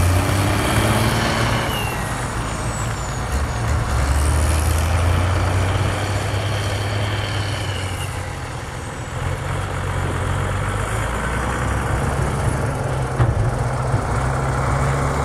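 Zetor diesel tractor engine labouring under load as it pulls a heavily loaded tandem trailer. A high whistle rises and falls several times over the engine in the first half, and the engine eases briefly about eight seconds in.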